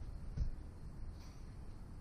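A single soft, low thump about half a second in, over faint steady background noise.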